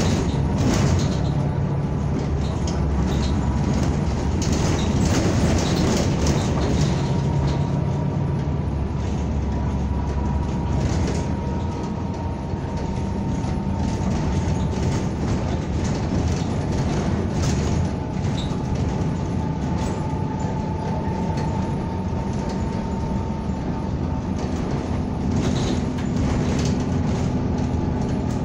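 Cabin noise of a NABI 45C-LFW city bus under way: a steady engine and road rumble with frequent rattles from the bus body and fittings. A thin whine runs through it, drifting slightly in pitch.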